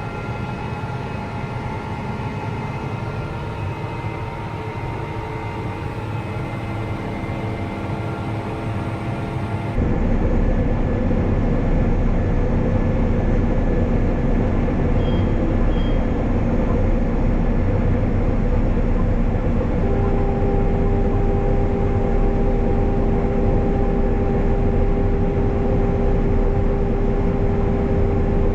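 Combine harvester running in the wheat: a steady engine and machinery drone with a few steady whining tones. About ten seconds in, the sound changes abruptly to a louder, deeper drone. About twenty seconds in, a new steady whine comes in and holds.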